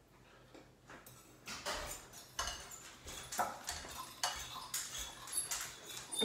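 A spoon clinking and knocking against a bowl, irregular light strikes about once or twice a second, starting about a second and a half in.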